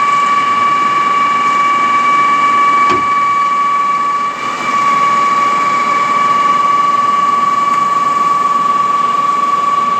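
Truck-mounted concrete boom pump's hydraulic drive running with a steady high-pitched whine while the rig is being closed up, the level dipping briefly about four seconds in.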